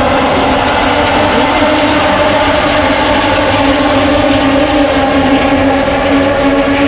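Moto2 race bikes' Triumph 765 cc three-cylinder engines running at high revs, many bikes at once, their overlapping notes holding steady with a few rising and falling as bikes pass.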